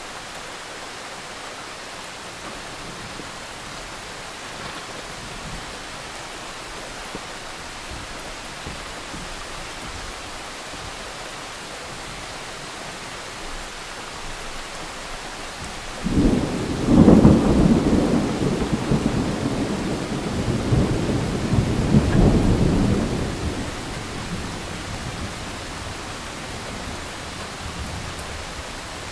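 Thunderstorm: steady rain falling, then just past halfway a sudden loud clap of thunder that rolls and rumbles for several seconds, swelling a second time before fading back under the rain.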